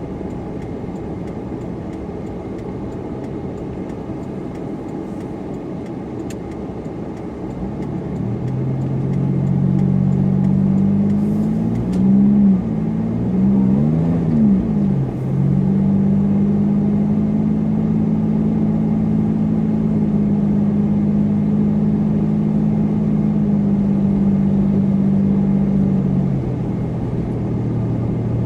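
Supercharged car driving, with a steady low road rumble. About eight seconds in, the engine note comes up under load, swells and falls twice in quick succession, then holds a steady pitch before easing off near the end.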